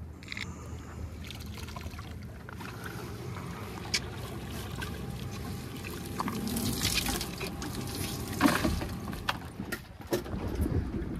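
Water streaming and dripping off a cast net full of sardines as it is hauled out of the water and over the boat's side, with scattered knocks and one sharp thump about eight seconds in.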